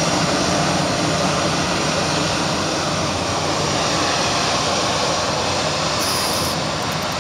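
Airbus A320 jet engines running, a steady rushing noise that eases off slightly toward the end.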